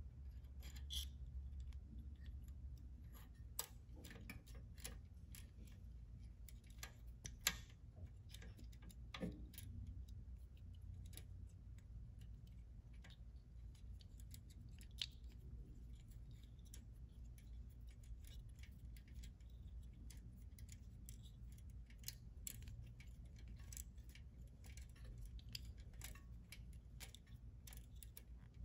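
Faint, scattered clicks and small knocks of a cable-operated disc brake caliper and its cable being handled and fitted by hand, over a steady low hum.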